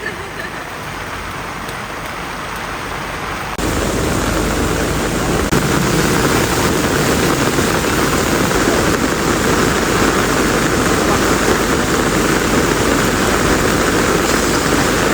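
Steady rain falling, an even hiss that gets suddenly louder about three and a half seconds in and then holds.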